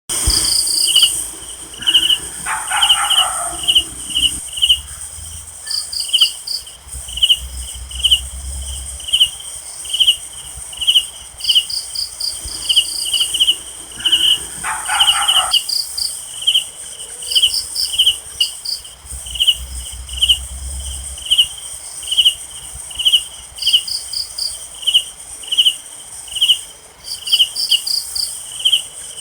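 Night insect chorus: crickets chirping in a steady, regular pulse over a continuous high-pitched insect trill. A short lower-pitched call sounds twice, about two seconds in and again about fifteen seconds in.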